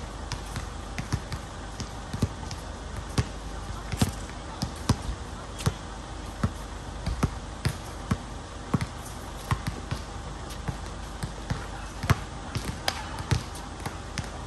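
Basketball dribbled on a hard outdoor court, bouncing in an uneven rhythm of about one to two bounces a second.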